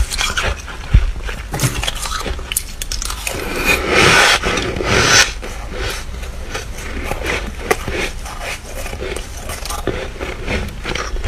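Flaky freezer frost being bitten and chewed close to the microphone: dense crackly crunches with some scraping, loudest about four seconds in.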